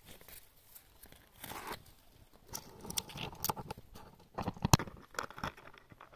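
Irregular crackling and rustling, like dry leaves or twigs being handled, in a few clusters of short clicks and snaps, the loudest a sharp snap a little past the middle.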